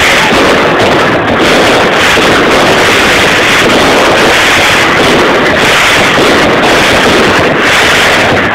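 Fireworks display going off: a dense, continuous, loud crackle of bursts with no pauses.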